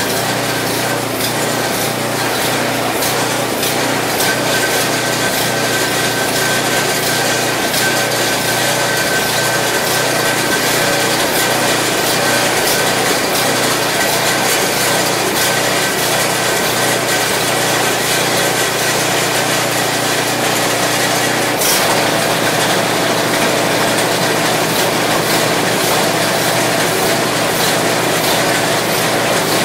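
8 hp single-cylinder Briggs & Stratton engine of a Craftsman 827 snow blower running steadily as it warms up off choke. A single sharp click comes about two-thirds of the way through, after which the engine note shifts slightly.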